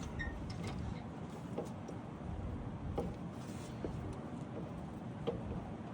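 A few faint, scattered metallic clicks as parts of a GM 10-bolt rear differential are worked by hand, trying to push out a shaft that is stuck tight, over a steady low background rumble.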